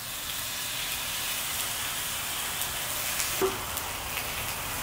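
Pork belly slices sizzling steadily in a hot frying pan as they are laid in with tongs, with a few light clicks.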